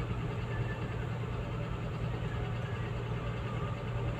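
Komatsu PC200-8 excavator's six-cylinder diesel engine running steadily at an even idle, a constant low hum.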